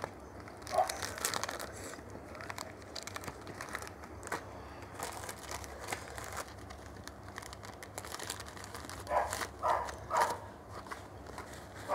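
Close-up eating sounds: crunchy, crackly chewing of fried chicken and rice eaten by hand, with some crinkling. A dog barks three times near the end.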